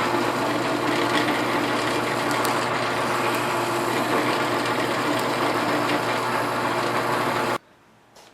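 Drill press spinning a quarter-inch sanding drum, lightly sanding thin oak pieces: a steady motor hum and whir that cuts off suddenly near the end.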